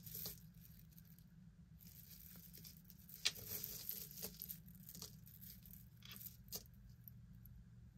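Faint, scattered clicks and rattles of a black multi-strand beaded necklace being sorted through by hand, over a low steady hum.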